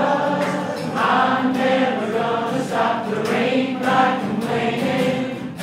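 A man singing a sustained melody over a strummed acoustic guitar.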